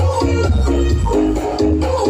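Dance music played loud through a sound system with six subwoofers, heavy bass under a quick repeating melodic figure.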